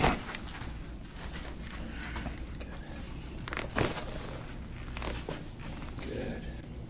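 Rustling and rubbing from hands working the jaw muscles during TMJ soft-tissue massage, with two sharper clicks, one at the start and one near the middle.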